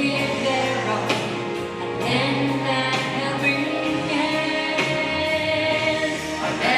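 Recorded song with a steady beat, about one stroke a second, and a choir singing sustained notes over it.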